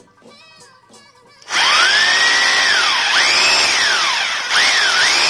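Inditrust 900 W SDS-Plus rotary hammer drill running with no load in hammer-drill mode. About a second and a half in, its motor starts suddenly with a loud whine, then speeds up and slows down several times.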